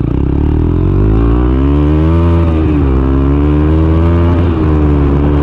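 Bajaj Pulsar NS200's single-cylinder engine accelerating hard. The pitch rises for about two seconds, drops sharply as the rider shifts up, then pulls steadily, with another brief dip about four seconds in.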